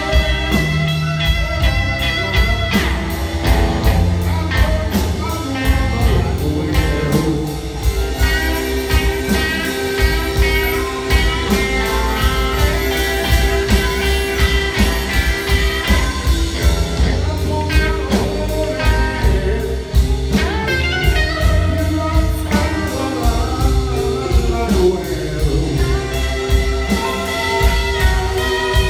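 Live blues band playing on stage, with piano, electric guitar, upright bass and drums, and a long held melody line over the top.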